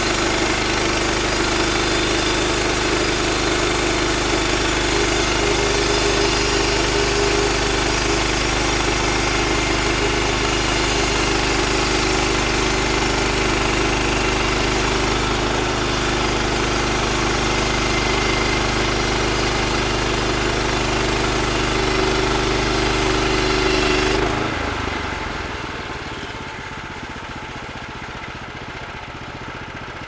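Woodland Mills portable bandsaw mill running at full speed, its gasoline engine driving the band blade through a cedar log in a steady cut. About 24 seconds in the sound drops sharply and the engine keeps running at a quieter idle as the cut ends.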